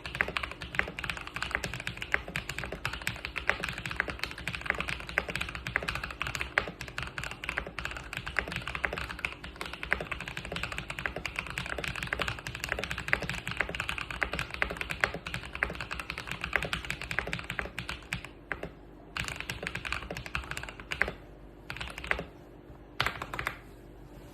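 Keychron K4 V2 mechanical keyboard with Akko Purple switches being typed on fast, the keystrokes running together; about eighteen seconds in, the typing thins out into a few short separate bursts of keys. The board has lubed stabilizers, a tape mod, a foam mod and PBT keycaps.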